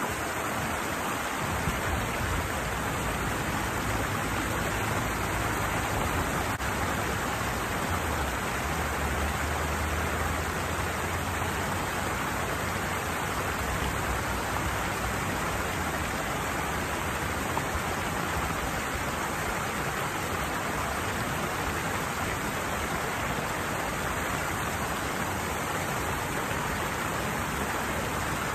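Steady rush of water pouring down a small cascade or weir, an even unbroken sound, with a faint low rumble underneath through the first half.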